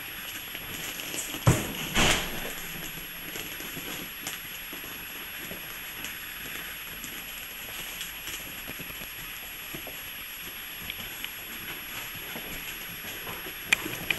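Young puppies scrabbling and playing on newspaper, with paper rustling and scattered small clicks. A sharp knock comes about a second and a half in, a louder rustle just after it, and a couple of clicks near the end.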